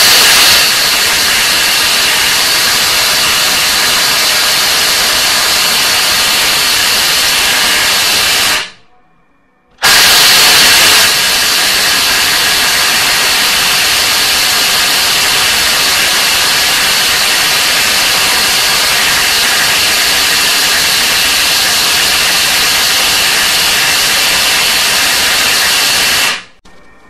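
Bosch GDX 18V-200 brushless cordless impact wrench hammering continuously on a 36 mm bolt tightened to 600 Nm, through a socket adapter. It runs in two long bursts, about nine seconds and then about sixteen seconds, with a short pause between. The bolt does not break loose: 550 Nm is the most this wrench could undo.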